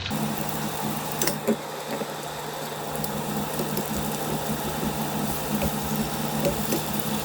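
Chicken wings sizzling in a thick, reducing sauce in a stovetop pan, with light crackles and ticks over a steady low hum.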